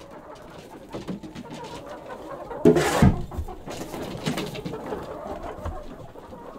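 Hens making low, cooing murmurs, with a louder call about three seconds in, amid the rustling scrape of a shovel in wood shavings.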